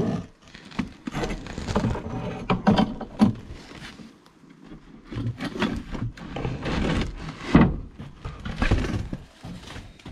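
Handling noise: irregular rustling with scattered knocks and thumps as the camera is picked up and moved about among wooden roof timbers.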